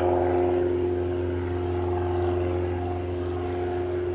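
Cessna 172 Skyhawk's piston engine and propeller running at power with a steady drone, as the light plane takes off.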